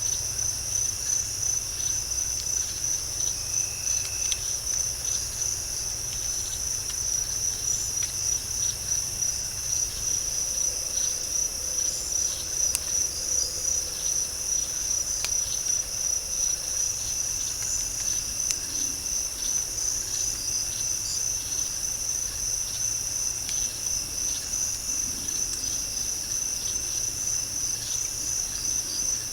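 Night insects chirring in a dense, continuous high-pitched chorus with a fast pulsing rhythm, with a few faint ticks.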